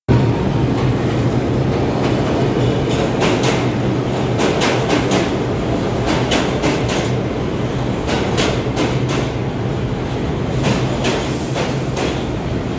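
New York City subway 3 train pulling into a station along the platform: a loud, steady rumble of the cars, with repeated clacks of the wheels over the rail joints.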